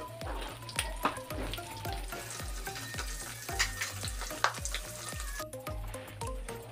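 Salted fish frying in hot oil in a wok, a steady sizzle with a few sharp scrapes and clicks of a metal spatula stirring the fish. The sizzle stops suddenly near the end, with background music with a steady beat underneath throughout.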